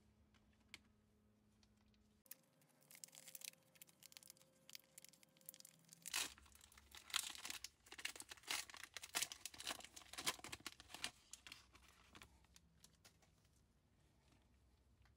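Foil wrapper of a 1996 Upper Deck USA Basketball card pack crinkling and tearing as it is ripped open by hand. A dense run of crackles starts about two seconds in, is loudest in the middle and fades near the end.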